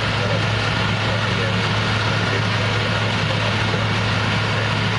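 Concrete mixer truck's diesel engine running steadily with a constant low hum.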